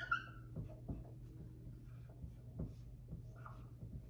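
Dry-erase marker writing on a whiteboard: short scratchy strokes and taps with a few brief high squeaks, loudest about the first second.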